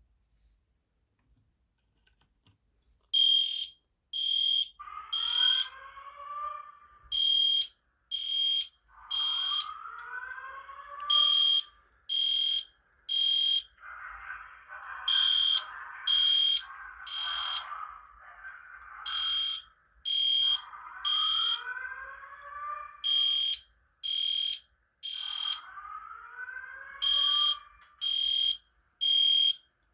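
Fire alarm test: an ESC Genesis horn strobe in code 3 sounds a high beep three times, pauses and repeats, starting about three seconds in. From about five seconds in, a Simplex True Alert speaker strobe overlays rising whoop tones.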